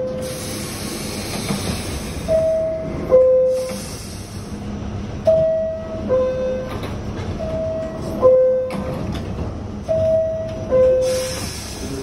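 New York City subway car door chime sounding a two-note descending 'bing-bong', high note then low note, four times, the warning that the doors are about to close. A hiss runs under the start and near the end.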